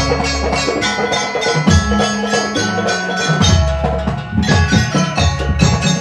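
Banyuwangi gamelan ensemble playing: kendang hand drums and bronze metallophones struck in quick, dense strokes over sustained low notes.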